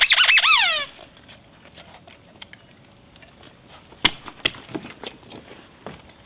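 A squeaky dog toy squeezed in quick pumps, its squeal wobbling up and down in pitch and ending in a falling squeal just under a second in. Then a dog scuffles for the toy, with scattered light clicks and knocks, the sharpest about four seconds in.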